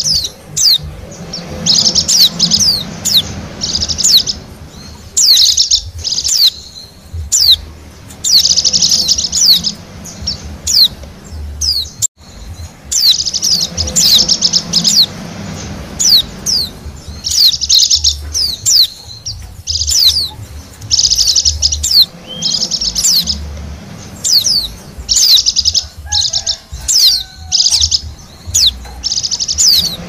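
Bali pleci (white-eye) song used as a trapping lure call: repeated bursts of fast, high twittering, each about a second long, separated by short pauses. The sound cuts out briefly about twelve seconds in.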